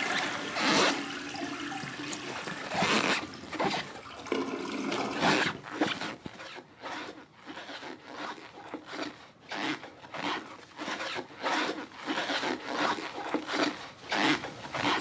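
Orthotic inserts in a man's shoes squeaking and creaking with each step as he walks, in a run of short, irregular squeaks. The orthotics are new and not yet broken in.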